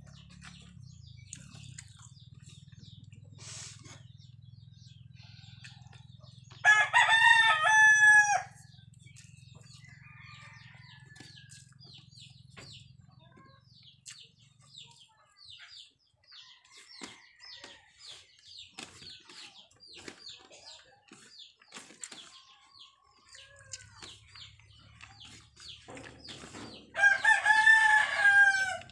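A rooster crows twice, about seven seconds in and again near the end, each crow lasting under two seconds and much louder than anything else. Between the crows are faint soft clicks of eating and a low hum.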